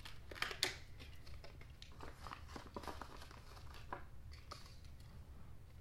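Toy packaging being handled, crinkling and crackling in irregular bursts, with a couple of sharper crackles about half a second in and lighter rustles after.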